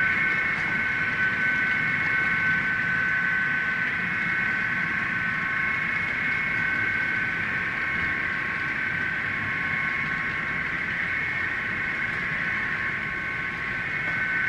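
Train running steadily past, with a constant high-pitched whine over a low rumble.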